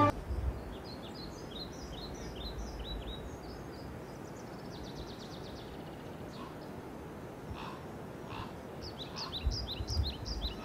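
Small songbirds chirping in short, quick falling notes over a steady outdoor hiss, with a rapid trill about five seconds in and a busier run of chirps near the end.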